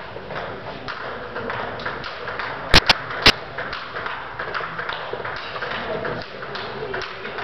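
Table-tennis ball clicking off bats and table in a reverberant hall, with small scattered ticks. About three seconds in come three loud, sharp knocks close to the microphone.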